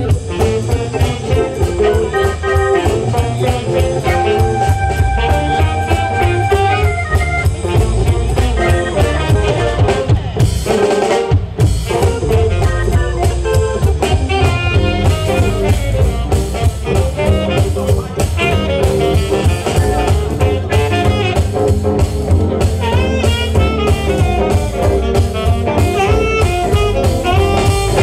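Live blues band playing: tenor saxophone lead over electric guitar, upright acoustic bass, drum kit and keyboard. The band breaks briefly about eleven seconds in, then plays on.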